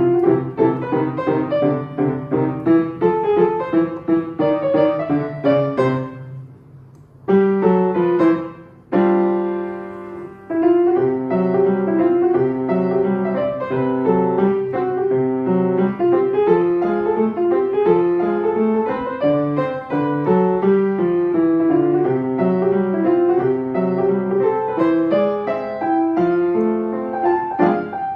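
Solo piano music, a flowing melody over repeated chords, with a slowing and a brief pause about seven to ten seconds in before it picks up again.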